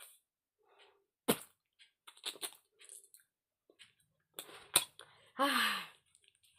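A woman's mouth sounds: scattered tongue clicks and lip smacks, with two sharp clicks about a second in and near the end. They are followed by a short breathy sigh falling in pitch.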